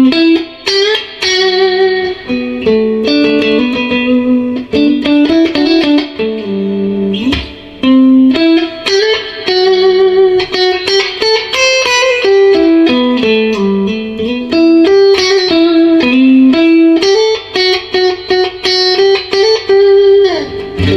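Electric guitar played through a newly repaired Ampeg R-212R Reverberocket valve combo amp, as a play-test after the repair. It plays melodic single-note lead lines with a few string bends and a slide down near the end, in a smooth, mid-heavy overdriven tone.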